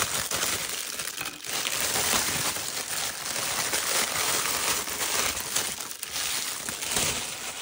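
Thin clear plastic wrapping crinkling and rustling as hands pull it off a silicone mold.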